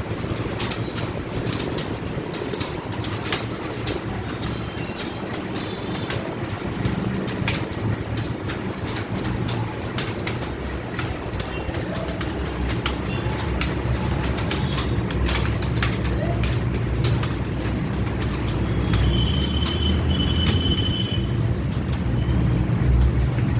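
Many computer keyboards being typed on at once during a timed typing test: a dense, continuous clatter of key clicks.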